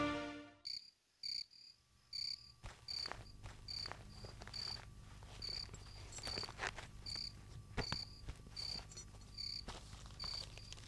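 A cricket chirping steadily, about two short high chirps a second, faint, after string music fades out in the first half second. Soft scattered knocks and rustles of cloth and a bag being handled sound alongside.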